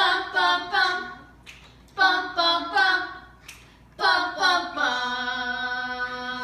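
A voice singing a tune a cappella, with no recognisable words: a short run of about three quick notes, repeated about every two seconds, ending in one long held note from about five seconds in.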